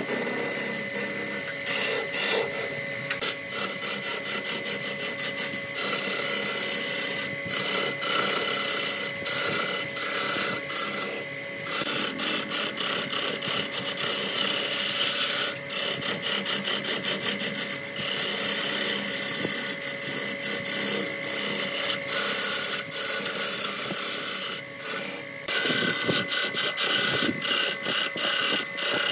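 Wood lathe running with a turning tool cutting a spinning wooden spindle. The cut makes a rasping scrape full of rapid, irregular clicks as shavings peel off, over a steady high hum from the machine.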